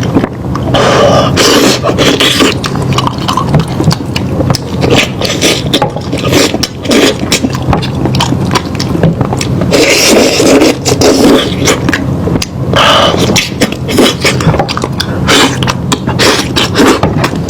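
Close-up chewing and mouth sounds of a person eating lamb meat: dense, irregular wet clicks and smacks.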